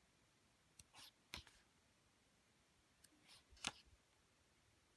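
Photo book pages being turned by hand: short paper rustles and flicks in two small clusters, about a second in and about three and a half seconds in, the second the loudest, against near silence.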